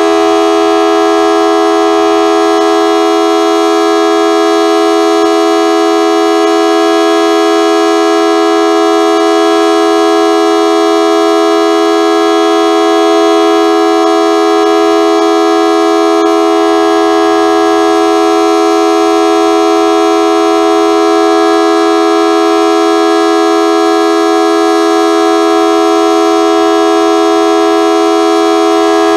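Federal Signal Model 2T dual-tone outdoor warning siren sounding a loud, steady tone held at speed, with no rise or fall. Its pitch is low, which the recorder takes as the siren not sounding good.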